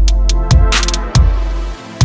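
Electronic music with heavy sustained bass and drum hits.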